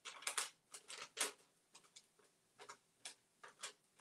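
Thin decoupage paper being torn along its edges by hand: a quick run of short, irregular rips and crackles of paper.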